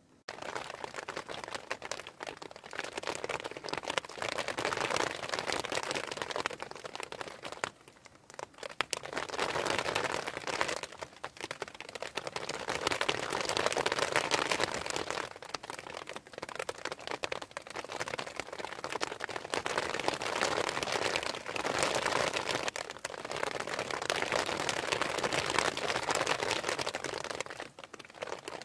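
Dense crackling patter of hail striking plastic sheeting, swelling and easing in waves every few seconds.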